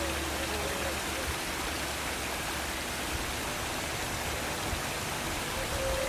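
Steady rushing of running water from a small waterfall splashing into a stream.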